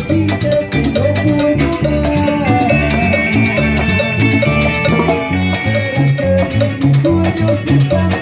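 Live band playing an instrumental stretch of an upbeat Latin dance tune, with a drum kit and bass keeping a steady beat.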